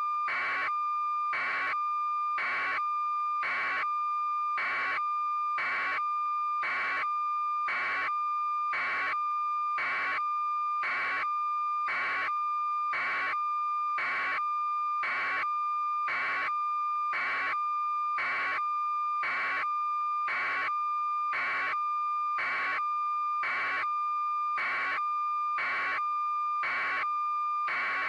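A steady electronic tone with a pulsed beep repeating about once a second, unchanging throughout.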